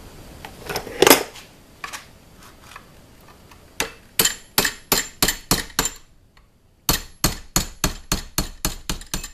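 Hammer tapping a steel punch to drift a tight-fitting rear sight into the dovetail of a 1911 pistol slide held in a vise. A few light clicks, then two runs of sharp, even strikes at about three a second with a short pause between.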